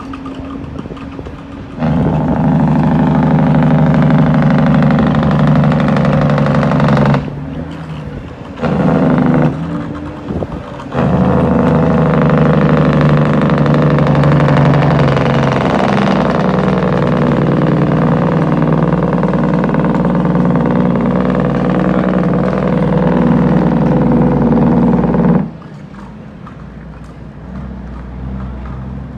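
International 9900 dump truck's diesel engine under heavy load, a loud steady drone that comes on suddenly about two seconds in. It drops out twice briefly and cuts off abruptly near the end, leaving a quieter road rumble.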